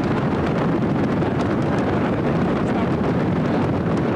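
A studio audience stamping their feet all together on the stands: a loud, steady rumble of many thuds.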